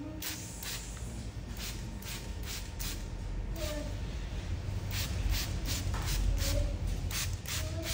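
Barber's scissors snipping through hair in a run of short, crisp snips, coming faster, about three a second, in the second half, over a low steady rumble.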